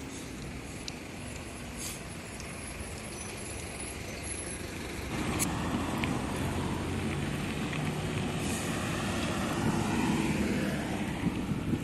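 Road traffic passing steadily. About five seconds in it grows louder, with a city bus's engine coming nearer.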